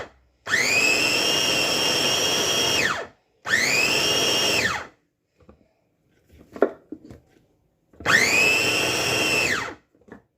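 Electric blender run in three short pulses, grinding dried figs with olive oil, thyme and garlic. Its motor whines up to speed and winds down each time, the first pulse the longest. A few light knocks come between the second and third pulses.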